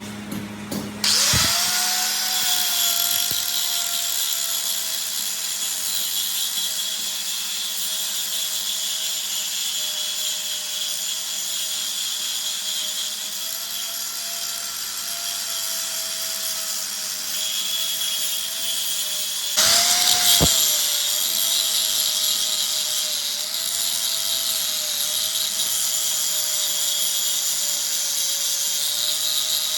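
Electric power tool motor spinning up about a second in and running at a steady whine over a high hiss. Near 20 s it briefly winds down and then spins straight back up.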